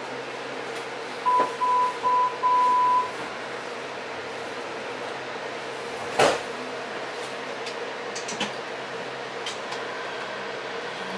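Inside a VTA light rail car at a station: the door-closing warning sounds as four beeps at one high pitch, three short and a longer one, over the steady hum of the car's equipment. A single sharp knock comes about six seconds in, as the train starts to move off.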